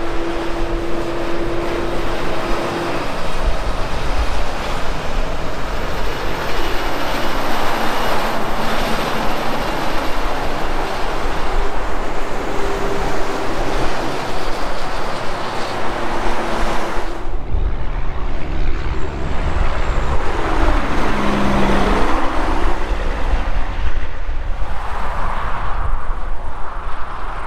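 Semi-trucks and cars passing one after another on a highway: diesel engines running and heavy tyre noise on the asphalt, rising as each vehicle nears. About three-quarters of the way through, a passing truck's pitch drops as it goes by.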